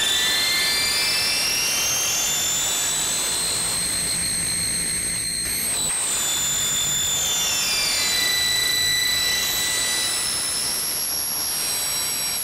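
Synthesizer signal run through a distortion plugin in a DAW at 44.1 kHz, aliasing audibly: a hissing, noisy bed with thin whistling tones that glide up and down, some sliding the opposite way to others, giving a dissonant, inharmonic ringing. The cause is harmonics the distortion creates above 22 kHz, folded back into the audible range.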